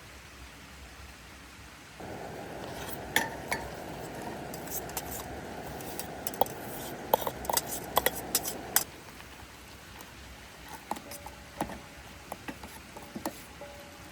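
A run of light, sharp clicks and clinks over a steady hiss. The hiss cuts in about two seconds in and stops abruptly near nine seconds; sparser clicks follow.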